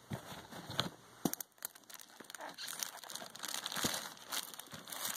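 Clear plastic packaging crinkling and rustling as hands handle it, with scattered light clicks; busiest in the middle stretch.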